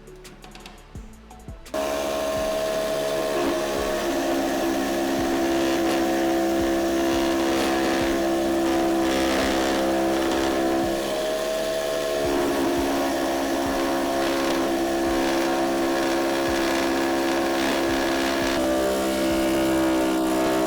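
Electric power tool motor switched on about two seconds in and running steadily with a constant whine, its pitch sagging briefly near the middle and shifting again near the end as it takes load.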